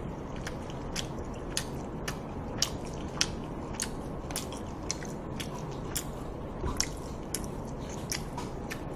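A person chewing food close to a microphone: wet mouth clicks and smacks about twice a second, irregular, over a steady hiss.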